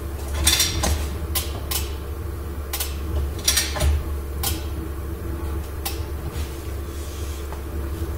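Irregular sharp metallic clinks and knocks, about nine in eight seconds, from a chain frame-straightening pull on a car's bent frame, over a steady low hum.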